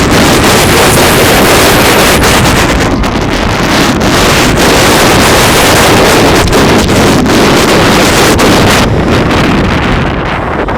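Loud wind rushing over the microphone of a rider on a moving roller coaster, with the train's rumble and rattle underneath. The rushing eases near the end as the train slows.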